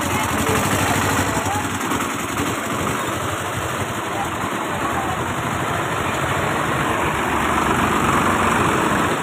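Motor vehicle engine running steadily, with road noise.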